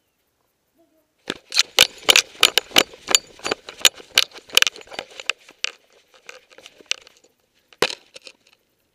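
Dog-worn camera being jostled and rubbed as the dog moves: a fast, irregular run of sharp clicks, knocks and rustles starting about a second in and thinning out near the end, with one more loud knock.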